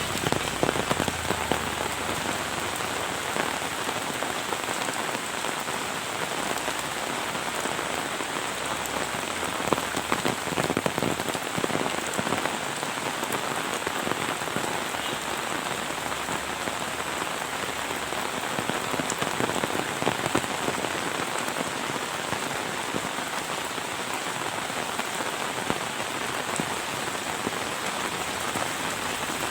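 Heavy rain falling steadily, a dense patter of drops hitting surfaces close by.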